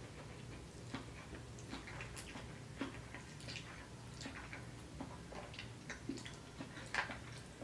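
Faint chewing: soft, irregular mouth clicks and smacks of someone eating, over a low steady hum.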